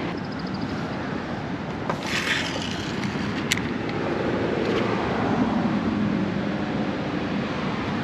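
Steady rushing outdoor noise of wind on the microphone and water, with a brief hiss about two seconds in and a single sharp click a second and a half later.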